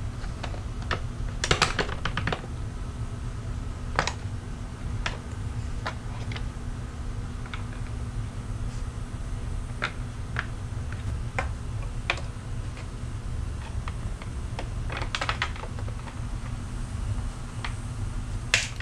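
Plastic clips and pins of a Hyundai Palisade grille clicking and snapping as its upper cover is worked loose from the grille by hand: scattered sharp clicks, with a quick flurry about a second and a half in and another about fifteen seconds in.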